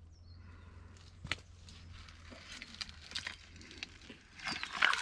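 Shovel working wet gravel and muddy water at the edge of a dug hole: a few faint clicks and scrapes at first, then louder gritty scraping from about four seconds in.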